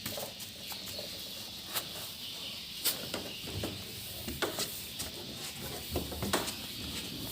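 Swiftlets inside a swiftlet house: many scattered sharp clicks and short chirps over a steady high-pitched hiss.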